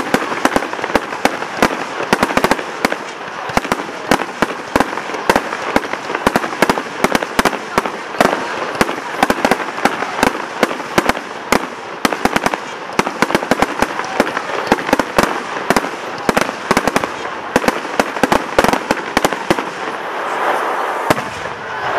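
Aerial fireworks bursting in rapid succession: a dense, continuous barrage of sharp bangs and crackles, thinning a little near the end.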